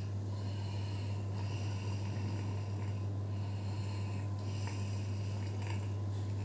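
An elderly woman snoring loudly in deep sleep, a rough breath about every second and a half, over a steady low hum.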